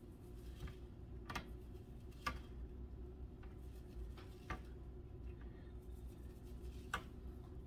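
Quiet kitchen handling: a few faint, sparse clicks as dry rub is shaken from a plastic spice bottle over bacon-wrapped shells on a wire cooling rack, over a steady low hum.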